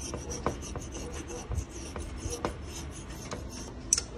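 Razor-blade scraper scraping old gasket material off the flange of a four-barrel carburetor, in short, irregular strokes.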